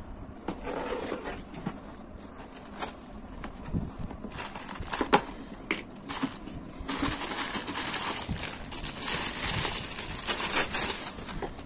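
Packaging being handled while the shock absorbers are unpacked: scattered clicks and knocks, then about seven seconds in a loud, steady rustling of wrapping that lasts about four seconds.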